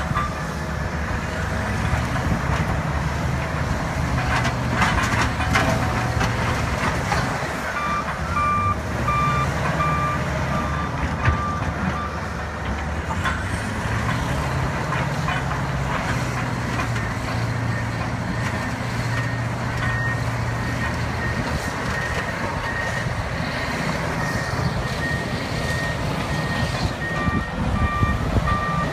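Two large crawler bulldozers, a Cat D9 and a Komatsu D275, running their big diesel engines under load while pushing rock, with a few sharp clanks of steel tracks and blade on rock. Reversing alarms beep on and off over the engine noise.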